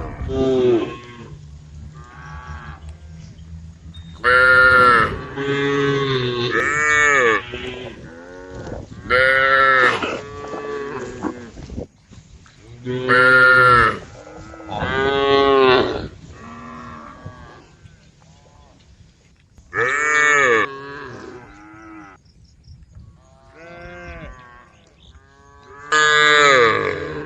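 Cows mooing again and again, several animals calling in turn: about nine loud moos, each rising then falling in pitch, with fainter moos in between.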